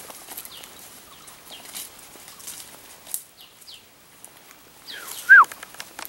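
Footsteps crunching on dry leaf litter along a forest trail, with two faint high chirps about midway. Near the end comes a single loud, short call that rises and then drops in pitch.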